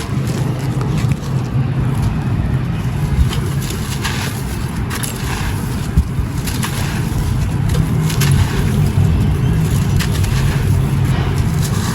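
Dry clay pot being crumbled, with scattered gritty crunches and crackles over a steady low rumble.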